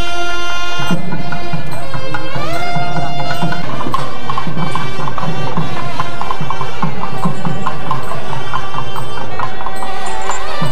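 Background music in a traditional Indian style: a held melody line that slides between notes over a steady hand-drum rhythm. The drums come in about a second in and drop out near the end.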